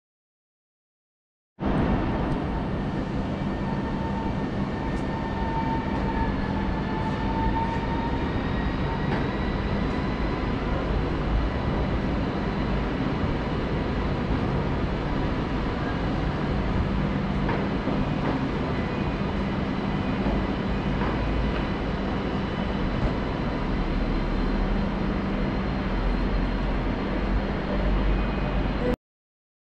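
ED250 Pendolino electric train departing, a steady rumble with faint high tones over it. It starts about a second and a half in and cuts off suddenly just before the end.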